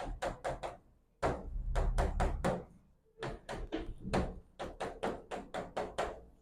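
Writing on a classroom board: quick taps and short scratchy strokes of the writing tool in several bursts, as an equation is written out.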